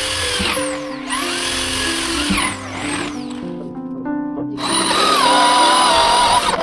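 Electric power tool working wood, its whine rising and falling in pitch with the load. It stops for about a second past the middle, then runs again steadier and cuts off at the end, over background music.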